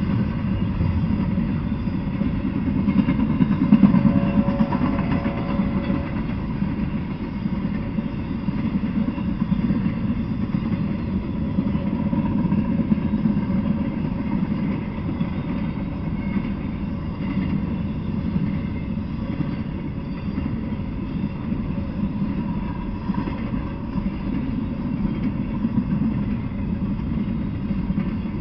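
Freight train of intermodal well cars rolling past, a steady rumble of steel wheels on the rails.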